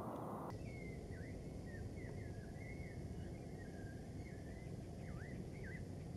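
Golden jackals howling: a faint string of thin, wavering high-pitched wails with sliding dips in pitch. They start about half a second in, over a steady low rumble of background noise.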